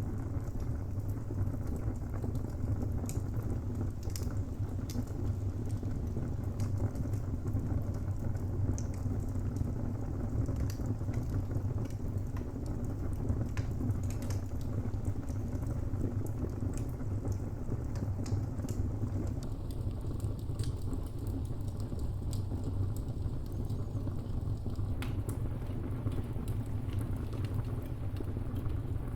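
Wood fire burning in a fireplace: a steady low rumble of the flames with sparse, irregular crackles and pops from the burning timber.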